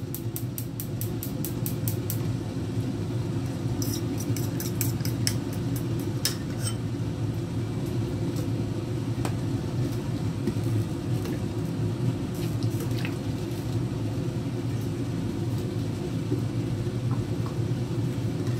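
Oil heating in a frying pan on the stove, giving scattered small crackles and ticks, densest early and again around four to five seconds in, over a steady low rushing hum.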